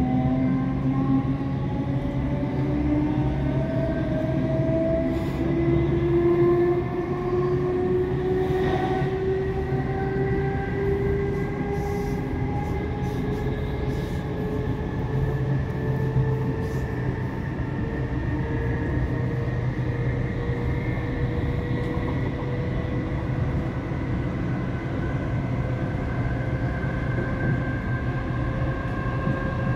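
Class 455 electric multiple unit's traction motors whining as the train accelerates, several tones rising steadily in pitch and easing off in their rise toward the end, over a steady low rumble of the running gear, heard from inside the carriage.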